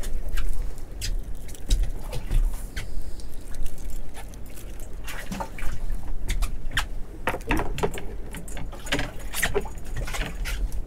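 Small bait fish on a sabiki rig splashing and flapping at the water's surface and dripping as they are wound up to the boat: a run of irregular small splashes and taps over a steady low rumble.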